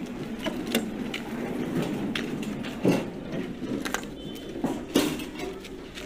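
A car door and a suitcase being handled at a taxi: a few sharp clunks and clicks, the loudest about three and five seconds in, over a steady low rumble.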